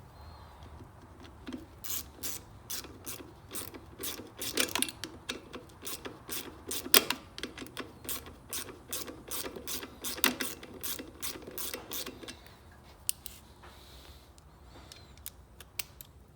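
Socket ratchet clicking as it runs down the 8mm bolts holding a lawn mower carburettor: a steady run of clicks, about three or four a second, for some ten seconds, then a few scattered clicks near the end.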